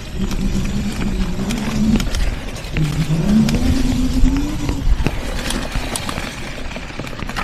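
Off-road mobility scooter's electric motor whining as it moves off, its low pitch rising twice as it gathers speed and then fading about five seconds in. Scattered knocks and rattles come from a loose, dangling microphone over rough ground.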